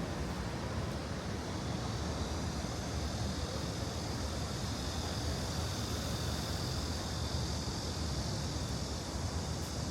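Steady outdoor ambience: an even rushing of flowing stream water over a low rumble of city traffic.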